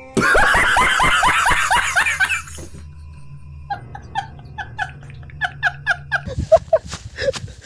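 A man laughing hard in quick bursts, about five a second. After a short pause comes a run of short, high-pitched laughs, about four a second.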